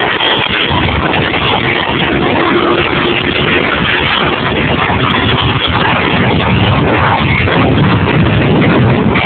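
Steady rush of wind and road noise from cars travelling at highway speed, picked up by a low-quality cell phone microphone. The noise grows a little fuller and louder toward the end.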